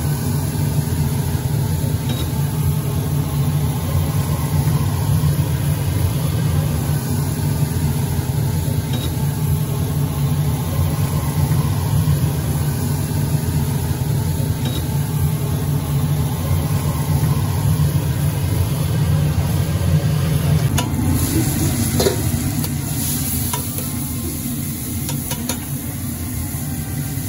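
A steady low rumble, then about 21 seconds in, food starts sizzling on a large flat tawa griddle, with a few sharp knocks of a metal spatula on the griddle.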